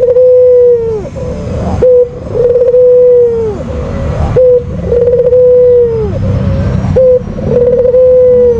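White (albino) Barbary dove cooing over and over, each coo a short note followed by a longer held note that drops off at the end, about three coos in all.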